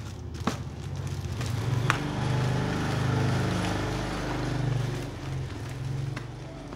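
A motor vehicle's engine hum that swells and then eases off, like a vehicle going past. Two sharp clicks are heard about half a second and two seconds in.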